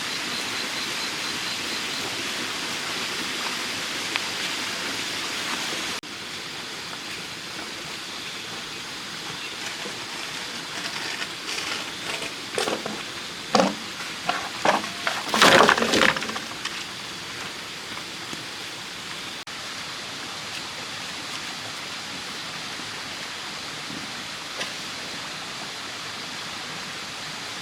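Steady outdoor hiss, then about halfway through a run of sharp knocks and cracks, with one loudest crack among them.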